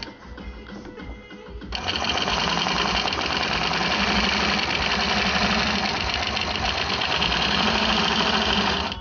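Longarm quilting machine stitching along a ruler template: a light rapid needle ticking that jumps, a little under two seconds in, to a loud steady fast-stitching run that stops abruptly near the end.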